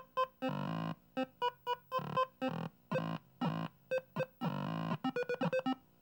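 Commodore PET 2001 playing a demo's beeping electronic music through the PET Companion board's audio out: quick short notes alternating with longer held ones, some with a low tone sliding down in pitch.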